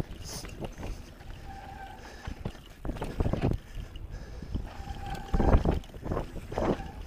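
On-One Codeine hardtail mountain bike riding down a rough dirt and rock trail, its tyres rolling and the bike rattling, with heavy thuds over bumps about three and five and a half seconds in. A few short high squeals come and go.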